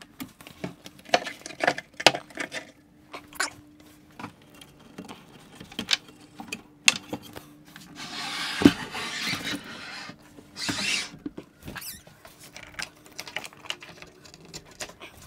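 Scattered knocks and clicks as a Shapeoko CNC machine is handled and pulled forward out of its wooden enclosure, with its frame scraping across the wooden bench twice near the middle and one sharp knock during the first scrape.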